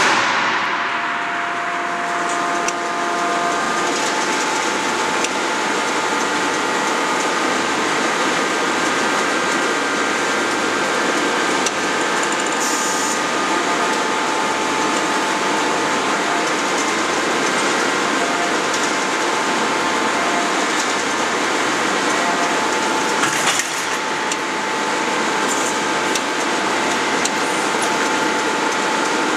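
Hydraulic die forging hammer's hydraulic system running with a steady hiss and drone and a few thin whining tones between blows. One hammer strike lands right at the start and rings away.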